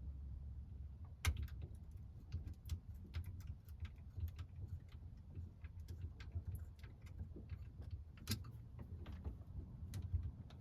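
Scattered small clicks and taps of hands working loose plastic plumbing fittings and clamps, over a low steady rumble. The sharpest clicks come about a second in and again near the end.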